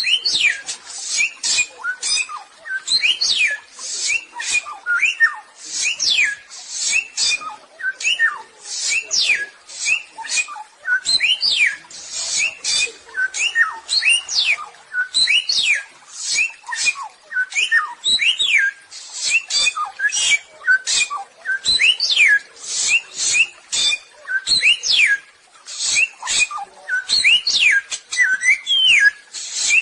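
Samyong bird singing continuously: a fast run of sharp falling whistles mixed with harsh, raspy chatter, several notes a second.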